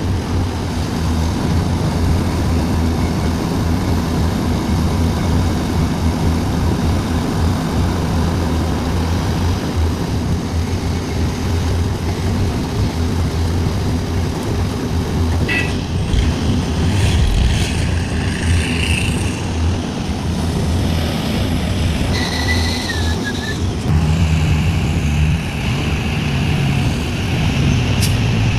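Heavy diesel engine of a Sumitomo SH350 excavator running steadily as it loads a dump truck. From about halfway through come high-pitched squeals and whines, and near the end the engine note rises as it comes under more load.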